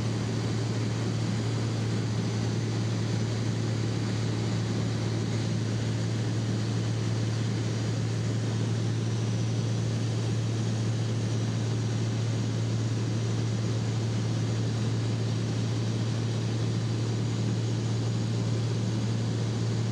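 Light propeller aircraft's engine and propeller running steadily in flight, heard from inside the cabin as an even drone with a constant low hum.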